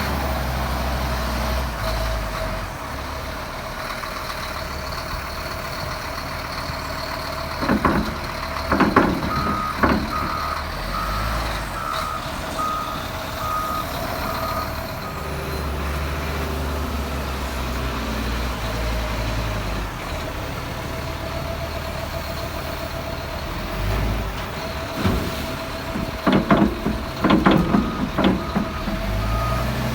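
Diesel heavy equipment running, with a reversing alarm beeping about once a second for several seconds, twice. Two spells of loud clanking and scraping come in between.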